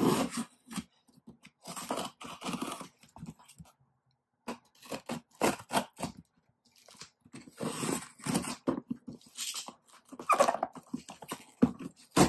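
A box cutter slicing packing tape on a cardboard shipping box, with tape tearing and cardboard scraping and crunching as the flaps are pulled open, in short irregular bursts with a brief pause about four seconds in.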